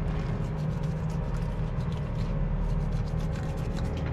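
Boat engine idling steadily with a low hum, with small clicks and rubbing from fish being handled in an iced fish box.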